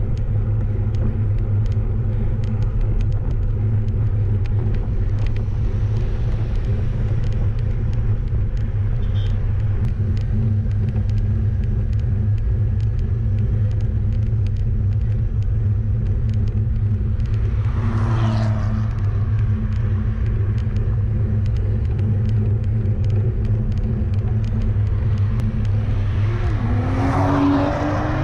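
Steady low rumble of wind and road noise on a bicycle-mounted action camera. A car passes about two-thirds of the way through, and another passes near the end, its engine note rising and then dropping as it goes by.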